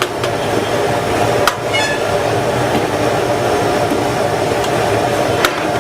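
A steady mechanical hum with a few sharp metallic clinks, one about a second and a half in, followed by a brief falling ring, and another near the end.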